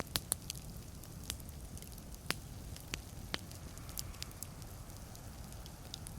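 Wood fire burning in a fireplace: logs crackling with irregular sharp pops over a low steady rumble of the flames, the loudest pops in the first second or so.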